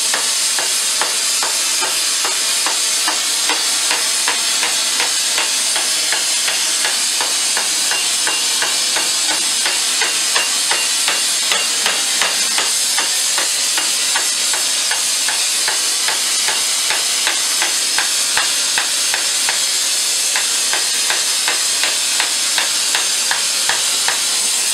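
Gas torch flame hissing steadily on a glowing steel pipe end, with a run of light, regular hammer taps on the hot rim as it is flared outward.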